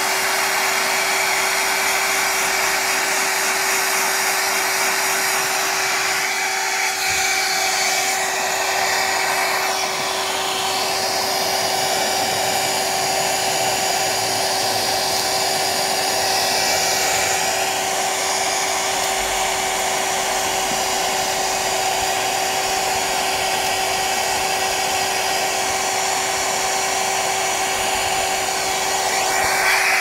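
Hand-held hair dryer running steadily, air rushing out with a constant hum from its fan motor.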